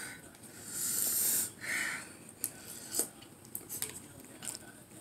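A man eating 2x spicy ramen sucks air in through his mouth in two hissing breaths in the first two seconds, against the burn on his tongue. After that comes a scatter of light clicks from a metal fork against the bowl.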